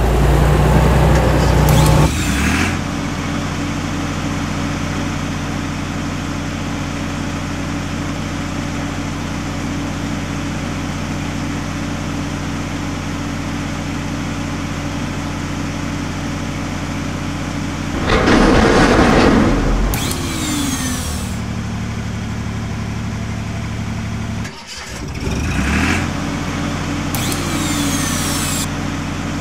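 Sound effect of a heavy truck engine running steadily, with louder surges of mechanical noise at the start, about two-thirds of the way through, and again near the end.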